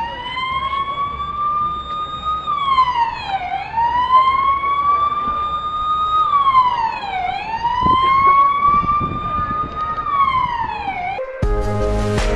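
Police car siren wailing: the pitch climbs slowly for a couple of seconds, then drops quickly, three times over. It cuts off near the end, and music with a steady beat starts.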